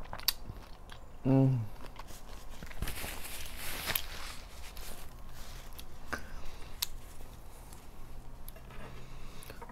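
A short 'mm' from a woman's voice about a second in, then a paper napkin rustling as she wipes her hands, with a few light clicks and taps of things handled on the table.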